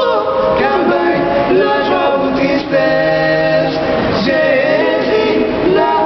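Male vocal trio singing a gospel song a cappella in close harmony, several voices holding long notes together.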